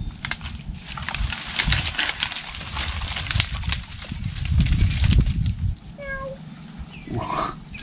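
Mangrove twigs and leaves crackling and snapping as branches are pushed aside and handled, with a louder low noise about halfway through. Near the end come a few short, high-pitched calls.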